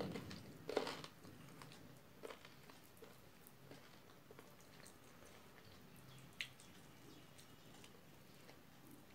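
Faint sounds of eating by hand: quiet chewing and fingers working rice on a plate, with scattered soft clicks and taps. A slightly louder knock comes about a second in, and a sharp short click about six seconds in.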